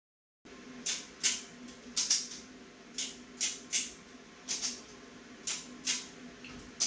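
Ratchet strap being cranked tight: a run of sharp ratchet clicks, one or two at a time, about every half second to a second, as the strap pulls the milling-machine table in.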